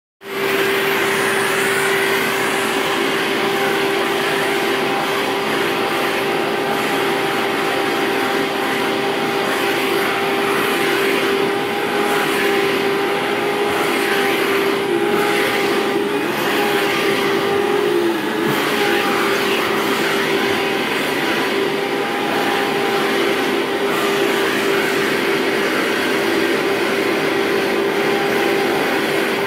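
Rainbow canister vacuum cleaner running steadily with an even motor whine over a rush of suction as its hose attachment is drawn through a cat's fur. The whine dips briefly in pitch once, a little past halfway.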